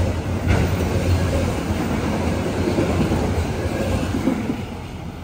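Freight train cars rolling past on the rails, steady wheel rumble with occasional clatter, growing fainter near the end as the train moves away.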